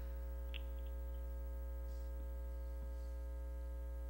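Steady electrical mains hum: a low buzz with a row of higher steady overtones above it, unchanging throughout, and one faint click about half a second in.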